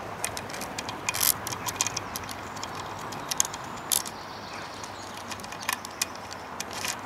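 Steel saw chain clicking and rattling as it is worked by hand round the clutch sprocket and into the guide groove of a 20-inch chainsaw bar: scattered, irregular light metallic clicks of the links, a few louder than the rest.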